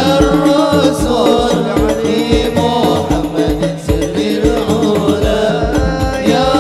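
Sholawat sung by several voices in Arabic, carried through a sound system, over hadroh frame drums keeping a steady low beat.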